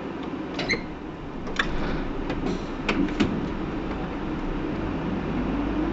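Interior running sound of a Hino PDG-KV234N2 city bus: a steady rumble, with a few sharp clicks and knocks in the first half, then a low whine that rises slowly in pitch near the end.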